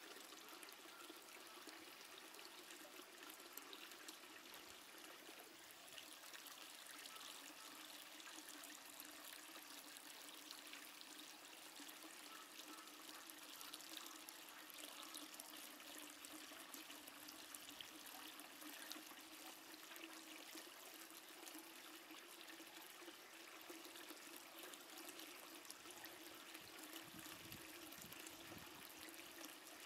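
Near silence: a faint, steady hiss with a low steady hum.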